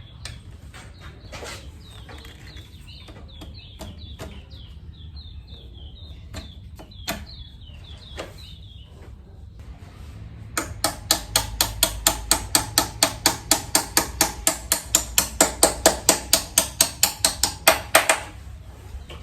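Hand-tool work fitting a motorcycle footpeg: scattered metal clicks and knocks, then a run of rapid, even metallic taps, about five a second for some seven seconds. A bird chirps repeatedly in the first half.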